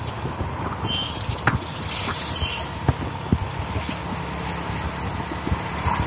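Motorised two-wheeler riding along a road: engine running with road and wind noise on a hand-held phone's microphone. Scattered short knocks and clicks come through it.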